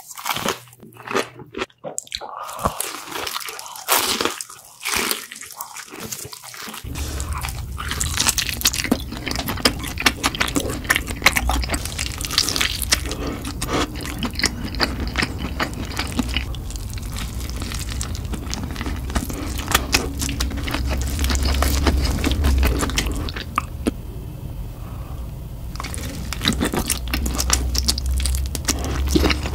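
Close-miked eating of chicken: crunching bites and chewing, with sharp separate crunches at first. About seven seconds in, a steady low hum starts, and the chewing turns into a dense run of small, wetter mouth clicks.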